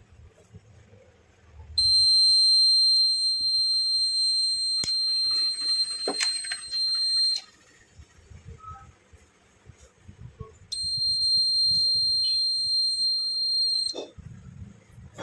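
Buzzer of a homemade fire alarm sounding one steady high-pitched tone twice: a long one of about five seconds, then, after a pause, a shorter one of about three seconds. A few clicks and a knock are heard during the first tone.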